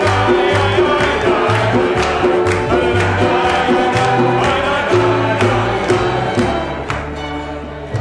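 A group sings a Jewish psalm melody in unison with acoustic guitar, electric guitar and upright bass, over a steady beat of a few strokes a second. The music softens a little near the end.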